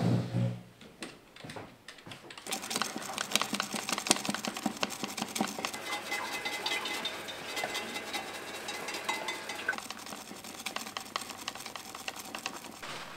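A brief chair shuffle as someone rises, then about two seconds in a brush starts scrubbing hard at a toilet bowl and a sink tap: a dense, fast run of scratching, clicking strokes that stops shortly before the end.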